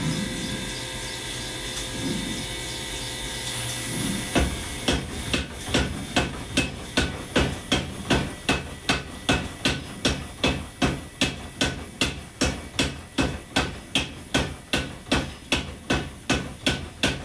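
Power hammer striking a glowing hot steel damascus billet between its dies, drawing it out, in even blows about two a second that begin about four seconds in. Before the blows start there is a steady machine hum.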